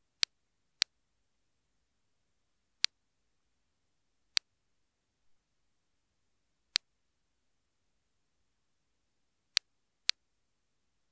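Soviet DP-66 Geiger counter clicking sparsely and at random: seven sharp single clicks in about eleven seconds, irregularly spaced, some close together and some seconds apart. The low count rate marks a low radiation level, here from an old 1970s camera lens.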